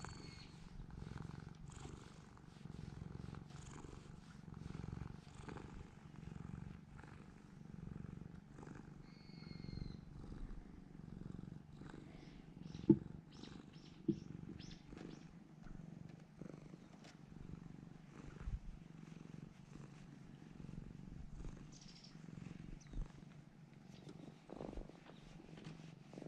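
A cat purring steadily while being stroked, the purr swelling and easing in slow waves. Two sharp knocks come about halfway through.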